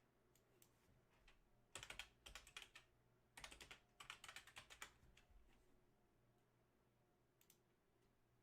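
Faint typing on a computer keyboard: two quick runs of keystrokes, the first about two seconds in and the second a moment later.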